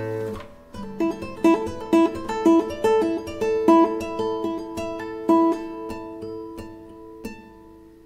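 Flamenco piece played on a nylon-string classical guitar: a strummed chord dies away, then single plucked notes repeat with accents about twice a second. The notes thin out and grow softer, with a last accented note near the end ringing away.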